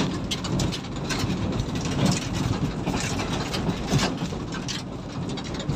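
Goods truck under way, heard from inside its open cargo bed: a steady engine and road rumble with constant rattling and knocking from the bed and the loose load.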